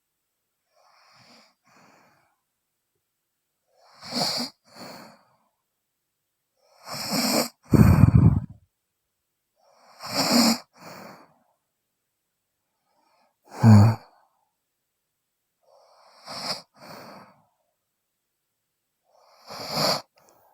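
A sleeping woman snoring: a rasping breath about every three seconds, most of them a louder snore followed by a shorter, softer one, with two especially loud, deep snorts about eight and fourteen seconds in.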